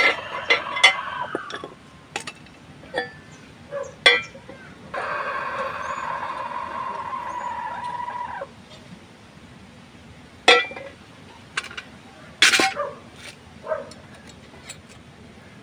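Light metal clinks and knocks as a steel pipe and steel plate are handled and set together, a quick run of them at the start and two sharper knocks later on. In the middle a steady pitched mechanical hum runs for about three and a half seconds and cuts off abruptly.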